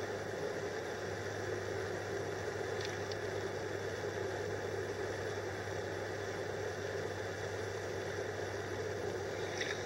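Portable gas canister camping stove burning under an aluminium pot, a steady even roar with a low hum. A light click about three seconds in.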